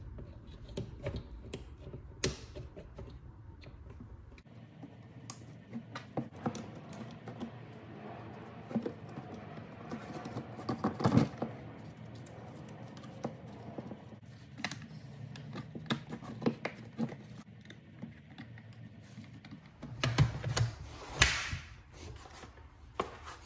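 Scattered small clicks, taps and scrapes of plastic housing parts and wiring being handled and fitted together as the Milwaukee 18V Sawzall's handle is reassembled after cleaning its brush assembly. A few louder knocks and rubs come near the end as the closed-up saw is picked up and handled on the bench.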